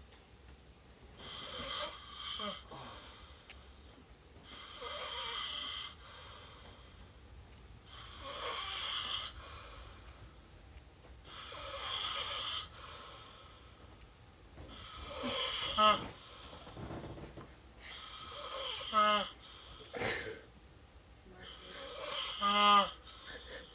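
A sleeper snoring in a slow, even rhythm: seven long snores, about one every three and a half seconds. The later snores end in a rising, rattling pitch.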